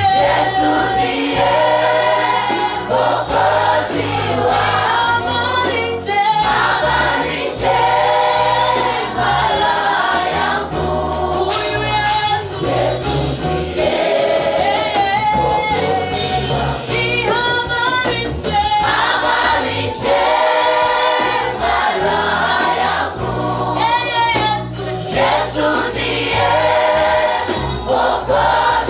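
A choir singing a Swahili gospel hymn, backed by instruments with a bass line that moves in steps.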